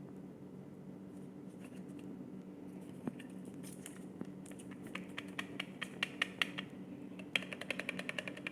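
Faulty phone charger giving a steady low electrical hum, the weird noise of a dangerous charger. About five seconds in, a run of sharp rapid ticks begins, several a second, and grows denser near the end.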